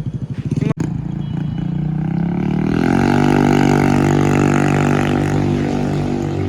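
TVS Ntorq 125 scooter's single-cylinder engine through an aftermarket full-system exhaust, pulsing at idle, then revving up over about two seconds and holding high revs before easing off near the end. The owner finds it a little loud, with the exhaust not yet warmed up.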